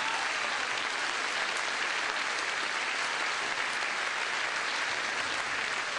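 Audience applauding, a dense, even clapping held at a steady level.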